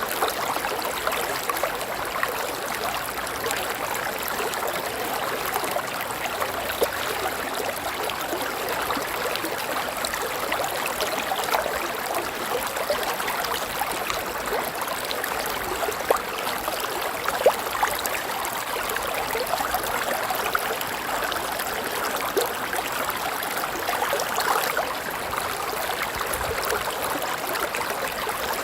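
River water flowing over rocks: a steady splashing, gurgling rush.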